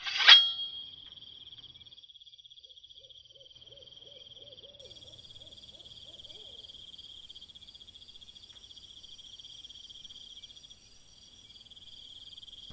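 Crickets chirring steadily in a high, finely pulsing trill, as a night-ambience sound effect. It opens with a short, loud burst, and faint lower chirps come in about three seconds in and die away a few seconds later.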